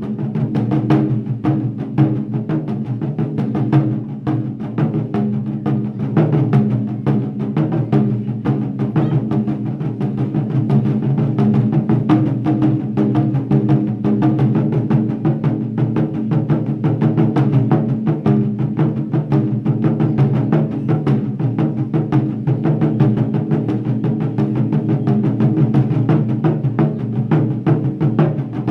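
An ensemble of Japanese taiko drums struck with wooden bachi sticks in a fast, dense, continuous rhythm.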